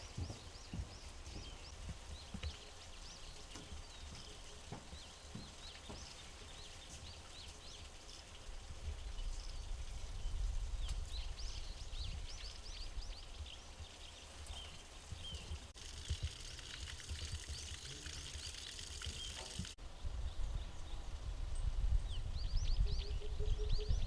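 Small birds chirping and twittering in quick repeated calls, over a low rumble that swells about a third of the way in and again near the end.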